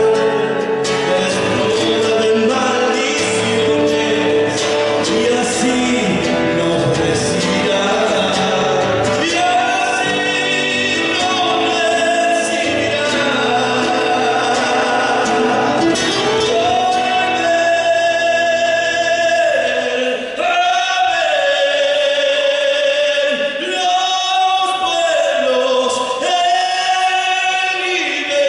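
Folk song sung by a group of male voices in harmony over instrumental accompaniment; about two thirds through, the accompaniment thins and the voices carry on in long held notes, nearly alone.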